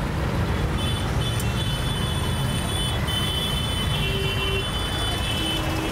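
Busy road traffic: a steady low rumble of engines, with thin high-pitched tones sounding on and off over it from about a second in.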